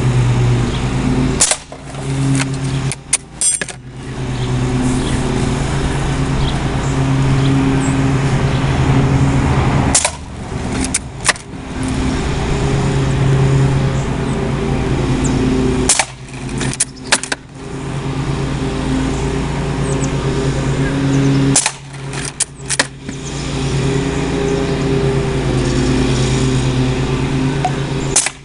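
Umarex Legends Cowboy lever-action CO2 BB rifle being fired about five times, roughly six seconds apart. Each shot is a sharp crack followed within a second by the clacks of the lever being cycled to eject the shell and chamber the next round. A steady motor drone runs underneath.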